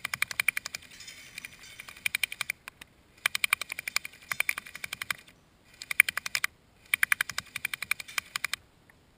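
A&K M249 SAW Mk II airsoft machine gun firing on full auto in about five bursts of rapid, evenly spaced clicking shots, stopping a little before the end.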